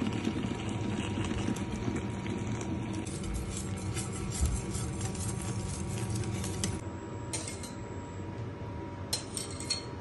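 Pot of rice and water boiling under its lid: a steady bubbling patter of many small ticks, with a faint steady hum beneath.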